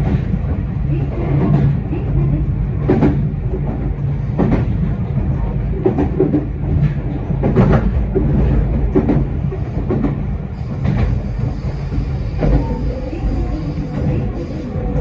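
Meitetsu 4000 series electric train running along the line, heard from inside the front cab: a steady low rumble from the wheels and running gear, with the sharp clack of wheels over rail joints about every second and a half.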